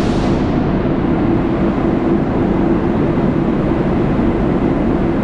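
Steady mechanical rumble with a constant low hum in an underground railway station, with no break or change.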